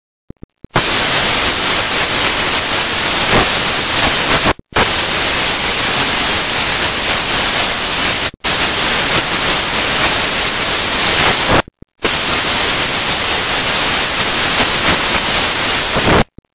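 Loud, even static hiss like white noise. It comes in four long stretches separated by three short dropouts and cuts off abruptly near the end.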